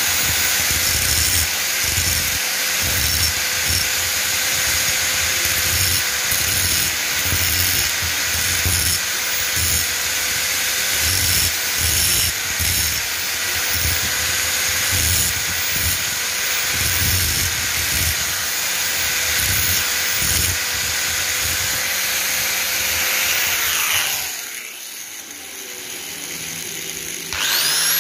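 Electric angle grinder running steadily as its abrasive disc works over the steel head of a claw hammer during restoration. About 24 seconds in it is switched off and spins down. Near the end a second angle grinder starts up with a rising whine.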